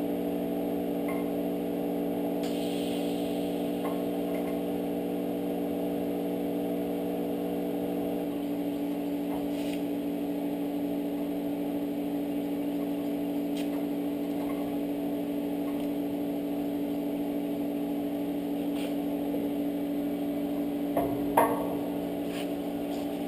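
TIG welder running a steady electrical hum while tack-welding 4130 chromoly steel tubing, with a brief hiss about two and a half seconds in. A few light clicks and one louder knock near the end.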